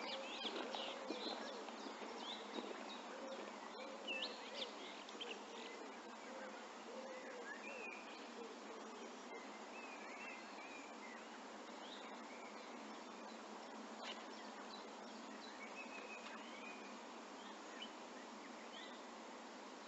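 Scattered bird chirps and calls over a faint, steady outdoor background hiss, with a few footsteps on grass in the first moments.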